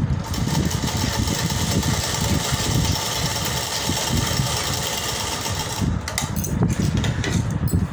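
Simran sewing machine running at speed, stitching steadily through buckram and cloth. About six seconds in it breaks off into a few short bursts of stitching.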